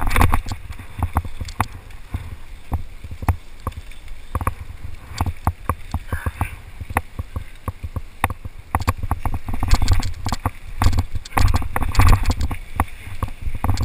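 Mountain bike clattering down rock slabs and a rutted dirt trail, picked up by a body-mounted action camera: a dense run of rattles and knocks from the bike over a low rumble of vibration and wind on the microphone. The clatter grows louder about ten and twelve seconds in.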